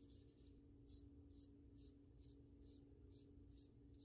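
Faint soft scratchy strokes, about two a second, of a foam-covered plating wand swiped back and forth across a steel golf iron face, over a steady low hum.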